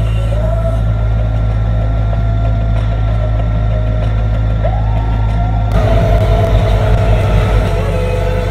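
Tractor engine running steadily, heard from inside the cab while it pushes snow with a front-mounted blade. A little over halfway through, the sound changes abruptly and gets louder, with a low pulsing to the engine note.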